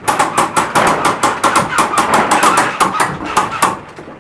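Airsoft guns firing rapid strings of sharp shots, several a second, easing off near the end.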